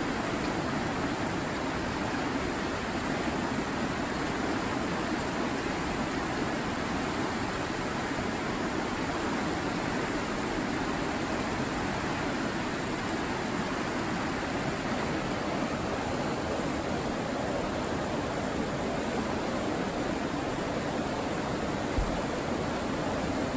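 Steady rush of river rapids, whitewater running over rocks, with a single brief low bump near the end.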